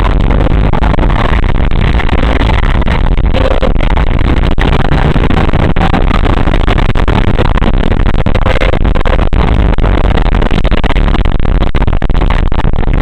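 Loud, steady rumbling noise of an ambulance on the move, heavily distorted, with no siren wail.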